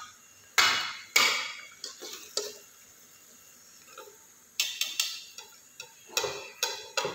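Steel skimmer and spatula clinking against a metal karahi and against each other as fried pakoras are lifted out of the oil. A string of short, sharp metal clinks comes in small clusters, the loudest two in the first second.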